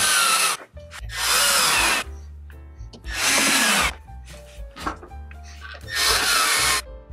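Milwaukee M12 cordless driver running four times, about a second each, driving screws through a golf cart's plastic headlight bezel into the body. Its pitch drops near the end of each run.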